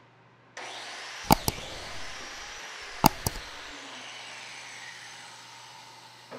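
Biscuit joiner (plate joiner) starting up with a whine and cutting biscuit slots into a maple table-edging board. Two plunges about a second and three seconds in, each opening with sharp knocks, then the motor's pitch slowly falls as it runs down.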